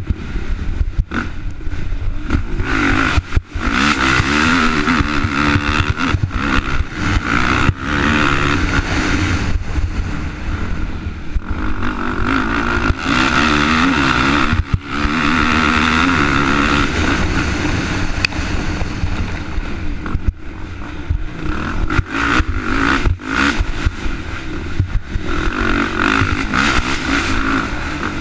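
Off-road dirt bike engine running hard, revving up and falling back again and again as the rider works through the woods. Frequent short knocks and rattles run through it from the rough trail.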